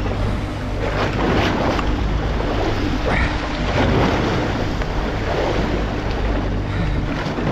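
Steady low machinery hum from the boat under a constant wash of sea water sloshing and splashing against the hull, with wind buffeting the microphone in gusts.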